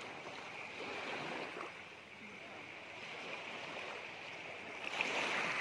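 Calm sea water lapping and washing gently at the shore, with a louder rush of water about five seconds in.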